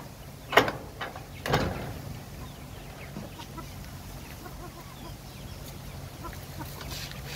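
Timber-framed wire chicken-cage door being unlatched and swung open, two loud knocks about a second apart. Then chickens cluck softly as they walk out.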